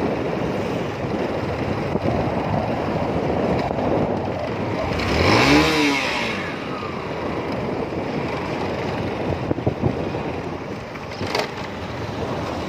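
Steady engine and road noise of riding a two-wheeler through street traffic. About five seconds in, a motorcycle engine revs up and back down.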